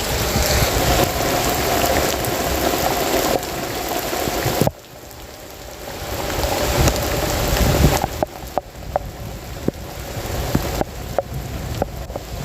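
Heavy rain pouring down steadily. A little under five seconds in, the sound drops off abruptly, then swells again, and in the second half it carries scattered sharp ticks and drips.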